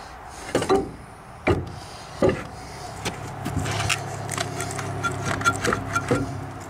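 A few sharp knocks of hands and tools on the Frick Corliss steam engine's cast-iron cylinder head as its removal begins. About halfway through, a steady low motor hum comes in and keeps going.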